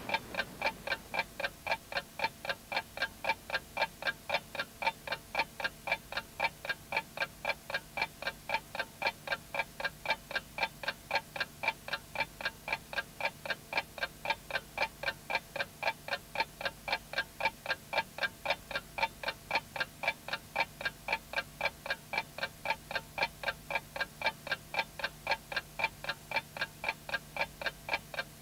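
Steady, evenly spaced mechanical ticking, about three ticks a second, over a faint low hum.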